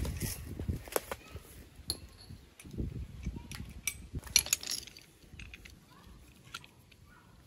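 A few sharp clinks and knocks, like utensils or dishes being handled, over low rumbling noise; the clinks stop after about five seconds.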